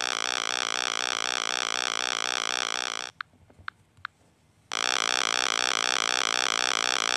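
Synthesized helicopter rotor sound effect: an electronic buzz pulsing rapidly and evenly. It cuts out for about a second and a half a few seconds in, with three faint clicks in the gap, then starts again.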